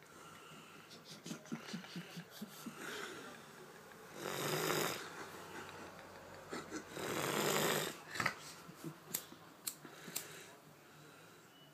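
A sleeping man snoring loudly: two long snores, one about four seconds in and one about seven seconds in, with a few sharp clicks after the second.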